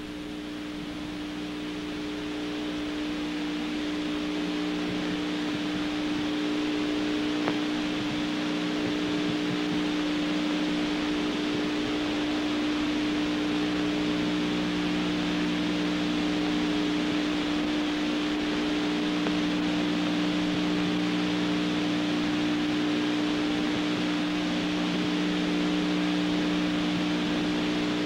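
Steady hiss and low two-tone hum of an open radio voice channel between transmissions, fading up over the first few seconds. There is one faint click about seven and a half seconds in.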